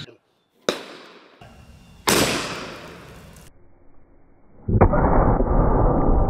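A 700 Nitro Express cartridge going off outside a gun. A short sharp click comes first, then about two seconds in a sudden bang that fades over about a second, and from near five seconds a duller, longer rumbling blast. It is an underwhelming discharge: the round vented upward and, by the shooter's own doubt, not all of its powder burnt.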